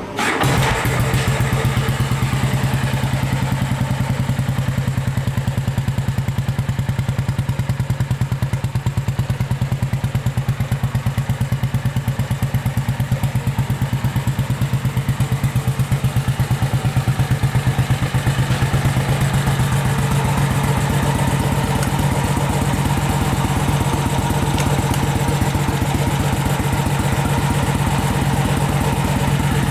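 BMW R35's 349 cc single-cylinder four-stroke engine idling steadily, an even run of exhaust pulses.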